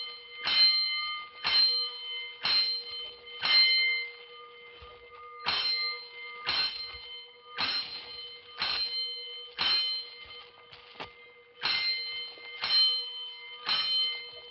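Fire-station alarm bell struck in groups of five, about one stroke a second with a pause between groups. It is tapping out the 'five bells' signal of a five-alarm fire.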